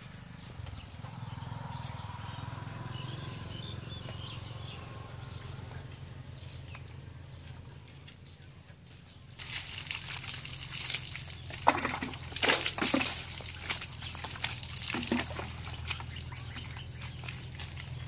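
Water poured from a plastic dipper splashing over a cow's back and running off onto the ground, in repeated splashes that begin about halfway through. Before that there is only a low steady hum with faint bird chirps.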